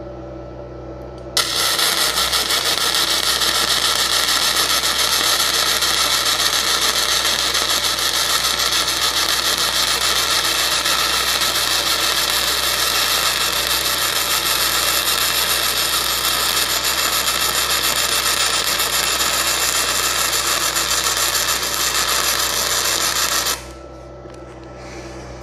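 YesWelder gasless flux-core MIG welding arc with .030 flux-core wire at a wire feed speed of 420, running one long continuous bead on 1/8-inch plate: a loud, steady crackle and hiss that starts about a second and a half in and cuts off sharply near the end.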